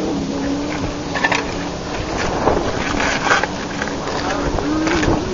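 A vehicle engine running steadily, fading about a second in and rising briefly near the end. In between come scattered knocks and clatter with indistinct voices.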